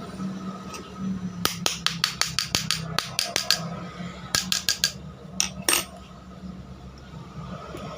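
A run of quick, sharp metallic taps, about five a second for two seconds, then a short burst of four and two more, over a steady low hum: parts of an indoor air-conditioner fan motor being tapped into place during reassembly after a bearing change.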